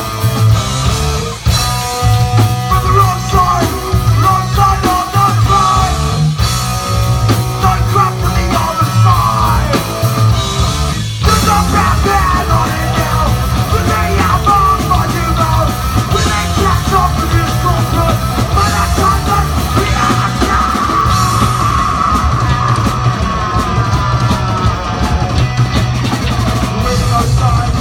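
Hardcore punk band playing live and loud: electric guitars, bass and drum kit, with a yelled vocal over them.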